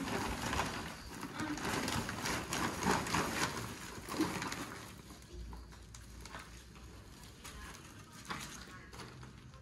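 Rustling and crinkling of a plastic sack held open while debris is handled, busiest in the first five seconds and then quieter.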